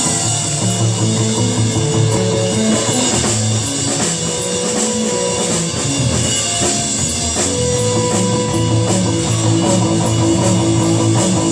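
Live rock and roll band playing: a bass guitar line of moving low notes over a drum kit, with electric guitar.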